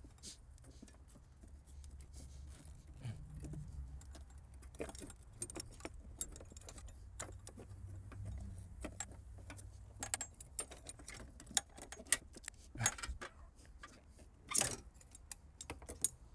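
Irregular metallic clinks, knocks and scrapes as a Subaru Outback's coolant pipe is wiggled and worked free from under the raised engine, with a few sharper knocks in the second half, over a low steady hum.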